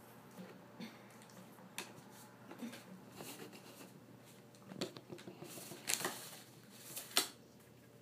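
African grey parrot scuffling on a paper folder over a pencil: light rustles and taps from its feet, beak and the paper, with a few louder rustling bursts in the second half as it flaps its wings.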